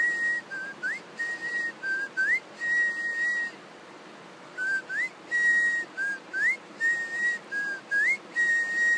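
A person whistling a simple tune in clear, pure notes: short upward slides leading into held notes, in two phrases with a pause about four seconds in.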